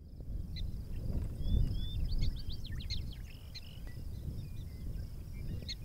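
Wild birds chirping in quick, short calls over a low rumble of wind on the microphone, with a faint steady high buzz behind them.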